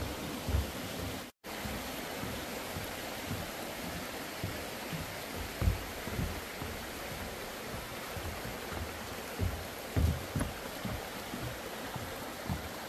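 Steady hiss of rushing water from a waterfall or creek, with scattered low thumps on the microphone. The sound drops out completely for a split second about a second and a half in.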